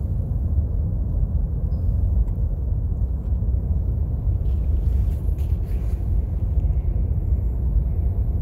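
Wind rumbling on the microphone: a steady but uneven low rumble with no clear pitch.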